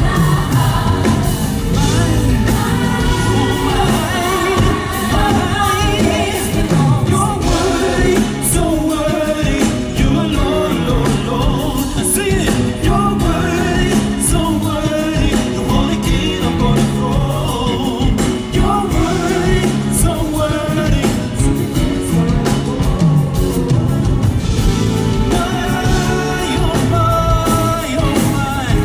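A live band playing a song: singing over electric guitar and drums.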